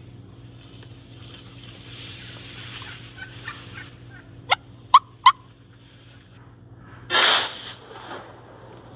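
Merriam's wild turkey gobbler calling: three sharp, loud notes in quick succession just past halfway. About two seconds later comes a single loud, half-second shotgun blast.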